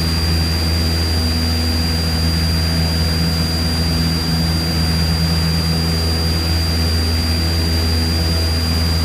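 Cessna 172's piston engine and propeller running steadily at climb power shortly after takeoff, heard from inside the cabin as an even drone with a thin steady high whine over it.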